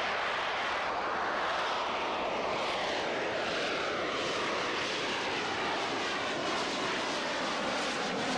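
Harrier jump jet's Rolls-Royce Pegasus vectored-thrust turbofan running as the aircraft hovers and edges forward on jet lift: loud, steady jet noise with a whine that slides down in pitch during the first few seconds.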